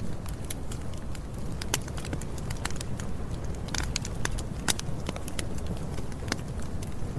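Campfire burning: wood crackling and popping with irregular sharp snaps, several a second, over a steady low rush of the flames.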